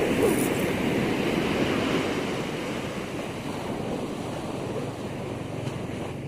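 Ocean surf: a wave breaking near the start, its rush of water then slowly fading as it washes back.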